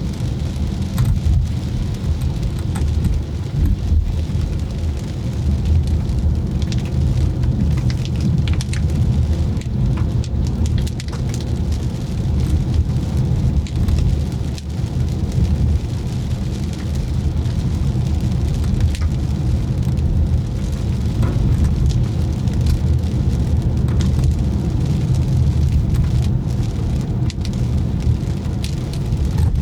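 A car driving in the rain: a steady low rumble of tyres and engine on the wet road, with scattered ticks of raindrops striking the car.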